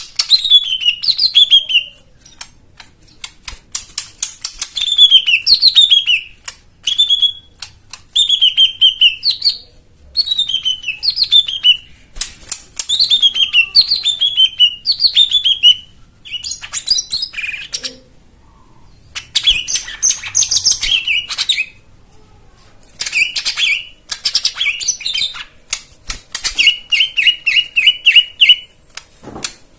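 Songbird song in repeated quick phrases of clear notes sliding downward, mixed with fast dry clicking chatter, a brief pause about two-thirds through, and a rapid even trill near the end. It is a lure recording of varied song played to set a silent cucak ijo mini singing again.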